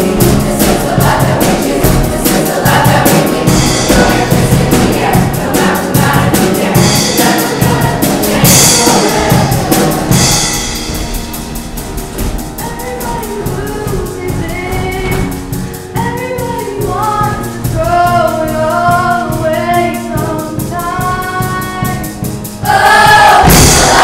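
Show choir singing with instrumental accompaniment and a steady beat; after about ten seconds the backing thins and the voices carry the melody, then the sound swells suddenly loud near the end.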